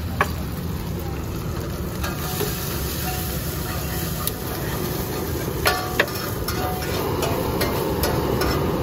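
Beaten egg sizzling on a large round iron griddle while a steel spatula scrambles and scrapes it. There are a few sharp metal clinks of the spatula on the pan: one at the start and two close together about six seconds in.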